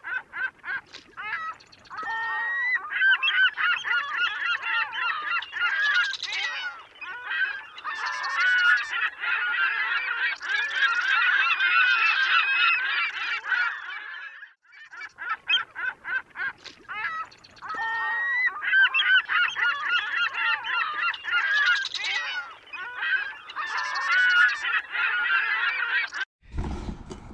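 A flock of geese honking, many calls overlapping continuously, with a brief pause about halfway through.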